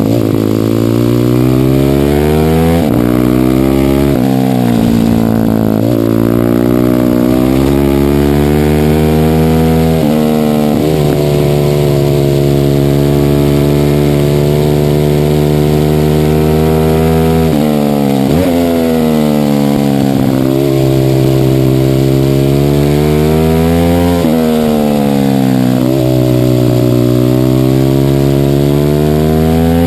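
Minibike engine at race pace, revs climbing over several seconds and then dropping sharply about six times.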